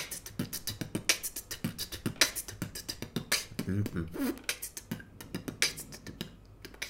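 A man beatboxing: a quick run of mouth clicks, snares and hisses, several a second, with a few short hummed notes in the middle.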